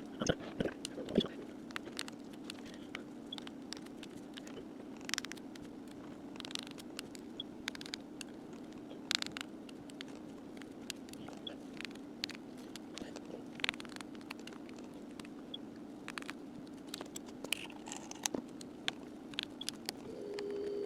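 Faint, scattered clicks and ticks of a small precision screwdriver backing screws out of a phone's back housing and the screws being set down, over a steady low hum. Near the end a steady hum starts up.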